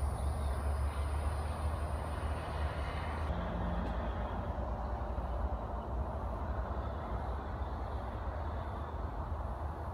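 Steady outdoor background noise dominated by a fluttering low rumble, with no distinct event standing out.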